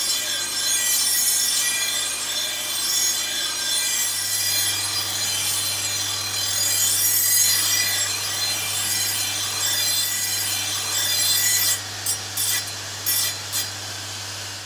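Metal turf-cutter blade being ground against the spinning sanding wheel of a shoe-repair finishing machine: a harsh, continuous grinding rasp over the machine's steady motor hum. Near the end the grinding breaks off briefly several times as the blade comes off the wheel, leaving the motor running.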